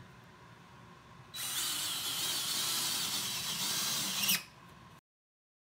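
A power tool runs for about three seconds, starting abruptly about a second in and stopping near the end; after it the sound cuts off completely.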